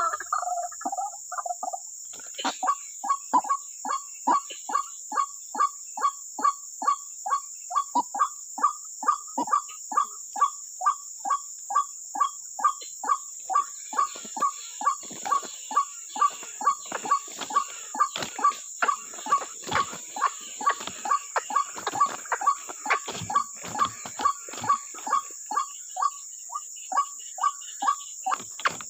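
White-breasted waterhen's 'wak' call, one short note repeated evenly about twice a second, starting a couple of seconds in. A steady high insect drone runs beneath it, and there is some rustling in the second half.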